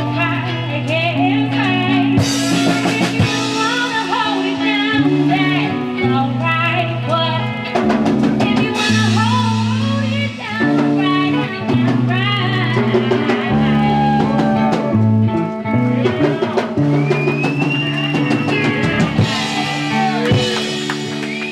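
Band music with a drum kit, a bass line moving through sustained notes, and guitar.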